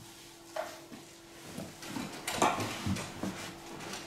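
Towel wiping over the damp, slackened hide head of a hanging hira-daiko drum, freshly steamed to shrink it: a few soft brushing strokes and light knocks, with a faint steady hum underneath.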